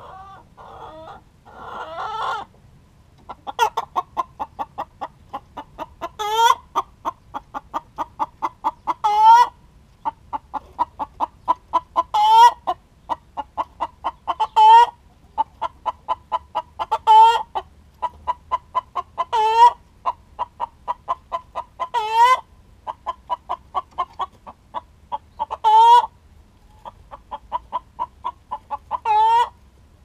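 Hen's egg song: a fast run of short clucks, about five a second, broken every two to three seconds by a louder, drawn-out squawk, over and over. Hens give this call around laying an egg.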